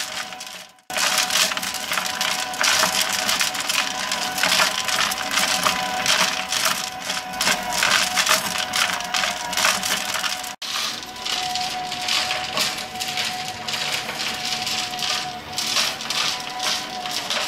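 Rotary tumbler stonewashing a knife blade: stones rattling and clattering continuously inside the turning drum over a steady motor hum. The sound breaks off very briefly twice.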